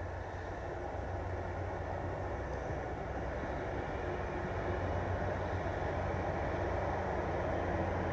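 Train running on the railway line, a steady low rumble slowly growing louder.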